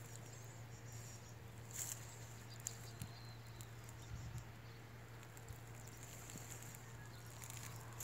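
Quiet outdoor ambience: a faint high chirring, a low steady hum, and scattered soft clicks and rustles.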